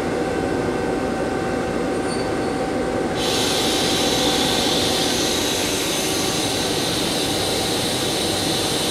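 Mazak Quick Turn 200MS CNC turning center running its main spindle in C-axis mode: a steady machine hum with a constant whine. About three seconds in, a loud steady hiss starts suddenly on top of it.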